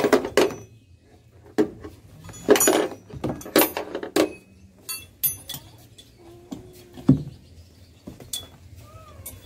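Metal hooks and ratchet buckles of tie-down straps clinking and rattling as the straps are handled, in several short spells, with a sharper knock about seven seconds in.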